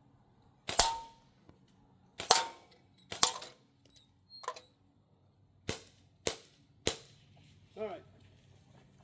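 Crosman M1 full-auto BB rifle firing, about eight sharp cracks spread unevenly over some seven seconds, some as quick little clusters of shots and a few with a short metallic ring after them.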